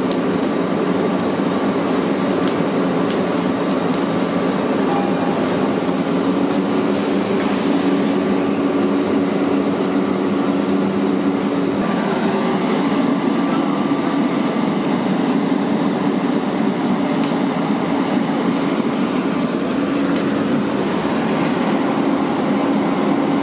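Fire engine running its pump to feed a hose line: a loud, steady mechanical drone with a constant hum.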